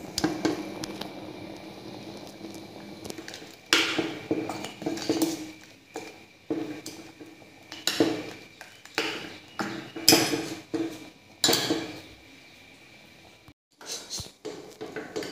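Steel ladle scraping and clinking against the inside of a stainless steel pressure cooker while stirring ground coconut paste into a thick lentil curry: about a dozen separate scrapes and knocks at irregular intervals.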